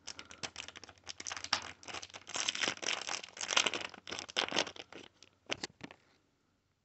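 Small clear plastic zip bag crinkling and crackling as a pendant is worked out of it, a dense run of small crackles that stops near the end.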